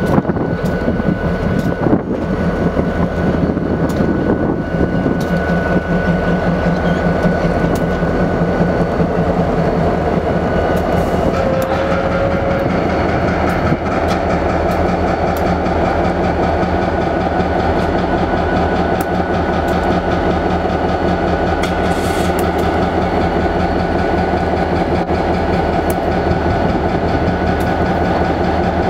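Diesel locomotive rolling slowly past close by, its engine running with a steady low drone. A thin steady high tone sits above it, and there are occasional clicks from the wheels on the rails.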